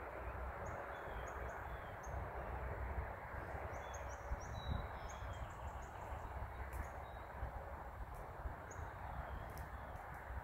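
Small birds giving short, high chirps again and again, in a quick run about four to five seconds in, over a steady outdoor background noise with a low, unsteady rumble.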